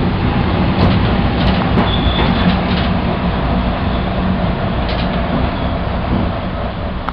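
Cabin sound of the KiHa 205 railcar under way: its DMH17 diesel engine runs under the floor with wheel and rail noise, and a low hum holds steady. A few sharp clicks come over the first few seconds, with a short high-pitched tone about two seconds in. The sound eases off near the end.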